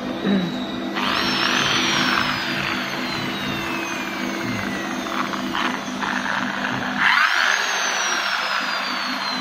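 Two bursts of a power tool's whine with hiss, about a second in and again about seven seconds in, each rising sharply and then sliding down in pitch over a couple of seconds. A steady low machine hum lies under them and stops at the second burst.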